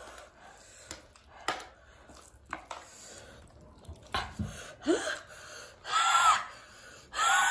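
Close-up eating sounds: soft chewing and mouth clicks, then two louder sucking slurps about six seconds in and near the end, typical of cooked river snails being sucked out of their shells.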